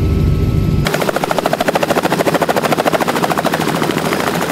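Light helicopter's main rotor running close by, a rapid even chop of blade slap. A low rumble cuts off about a second in, where the chopping begins.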